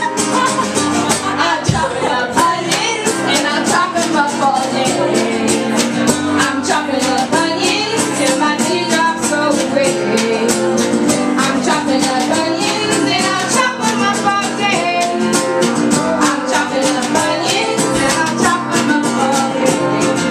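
Folk song played live: women's voices singing over a strummed acoustic guitar and a banjo drum struck with a stick, with a quick, steady beat.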